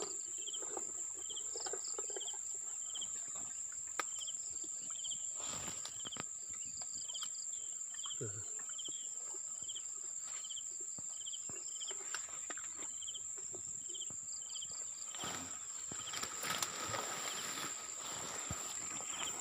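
Insects calling: a steady high-pitched drone with a short chirp repeating about once a second. Grass rustles toward the end as a plastic jug eel trap is handled and pressed into the grass.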